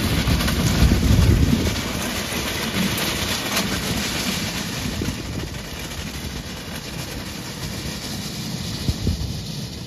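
Jeep Wrangler driving away across a pebble beach: engine running and tyres crunching over the stones, the sound loudest at first and fading steadily as it pulls away.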